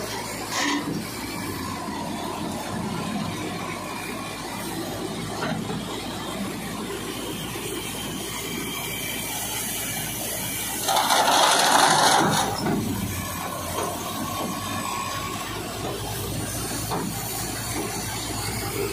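Tractor-driven grain thresher running steadily, its drive and auger churning along under the tractor's engine as dry crop stalks are fed into the hopper. About eleven seconds in, a louder rushing surge lasts a second and a half.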